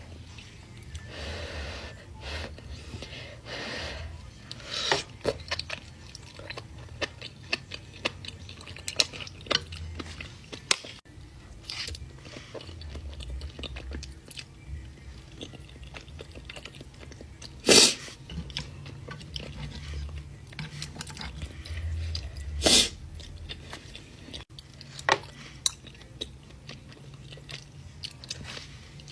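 Close-miked eating of ramen: wet chewing with many small sharp mouth clicks, two of them much louder in the second half.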